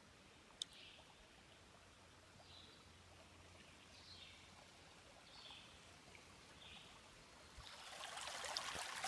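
Faint forest quiet, then running stream water that grows louder over the last second or two as the brook comes close. A single sharp click sounds about half a second in.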